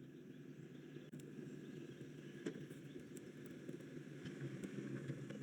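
Faint handling sounds from brake caliper slide-pin work, with a few small clicks and light rustling over a low steady background.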